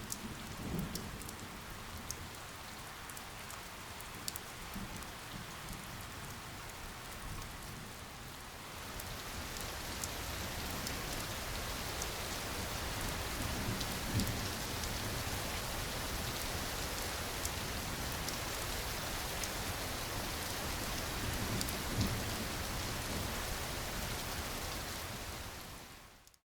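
Steady rainfall with fine patter of drops, growing heavier and louder about nine seconds in, then fading out near the end.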